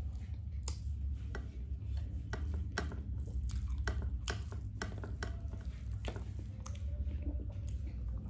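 Close-up eating sounds: chewing, with irregular small clicks and wet squishes of food over a steady low hum.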